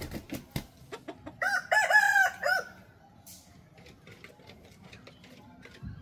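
A rooster crowing once, a loud crow of about a second that starts about a second and a half in. Before it, a quick run of sharp taps.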